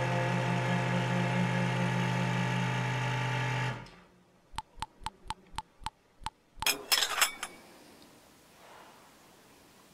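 Espresso machine's pump humming steadily as coffee runs into a porcelain cup, cutting off sharply about four seconds in. A quick run of about eight small plinks follows as the last drops fall into the coffee, then a porcelain cup clinks once.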